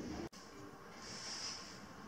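Faint outdoor ambience, with a soft high hiss that swells and fades about once a second. A brief louder sound cuts off abruptly a moment in.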